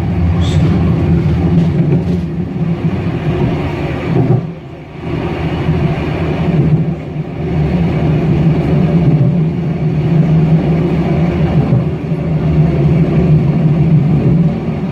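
Solaris Tramino S105P tram running along the track: a steady, loud rumble of wheels and running gear, dipping briefly about four and a half seconds in.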